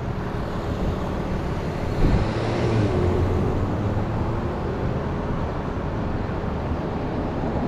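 Road traffic: steady tyre and engine noise of cars driving past, with one vehicle's engine tone swelling and fading about two to three seconds in.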